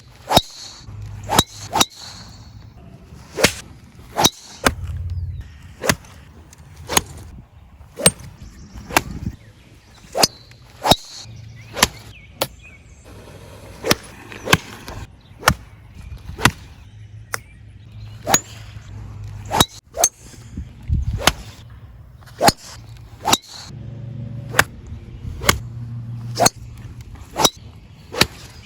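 Golf clubs striking golf balls, shot after shot: a quick succession of sharp cracks, about one a second, some with a metallic ring and some with a swish of the swing before the strike.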